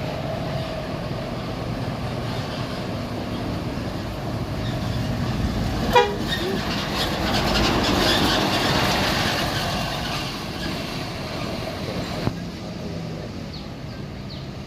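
A bus passing close by: its engine and tyre noise swells and fades over several seconds, with a short, sharp horn toot about six seconds in as it arrives.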